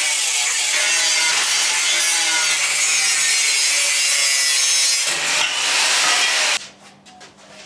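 Angle grinder with a cut-off disc cutting through steel pipe: a loud, steady grinding hiss with the motor's whine wavering under load. The sound cuts off suddenly about six and a half seconds in.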